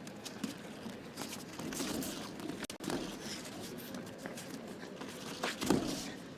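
Judo grip fighting: heavy cotton judogi rustling and snapping as the two fighters grab and break grips, with bare feet shuffling and stepping on the tatami mats. There is one louder thud near the end.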